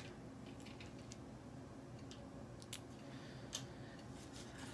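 Faint, scattered light clicks and taps as small cardboard and plastic pieces of a miniature dollhouse kit are shuffled about on a wooden table, over a low steady room hum.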